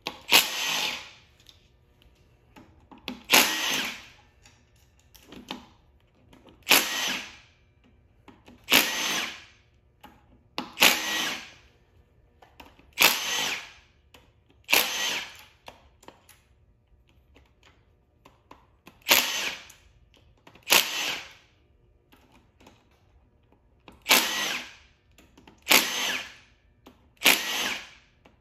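A cordless power tool spinning in short bursts, about a dozen, each under a second and roughly two seconds apart, as it runs out the cam tray bolts on an Audi 2.0T TFSI cylinder head.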